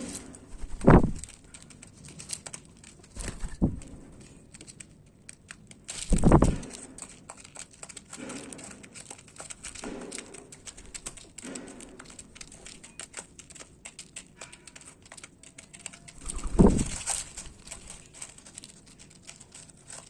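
Pigeons and other wild birds feeding on seed: many small pecking and crunching clicks. Louder short low-pitched sounds come about a second in, near four seconds, near six seconds and again near seventeen seconds.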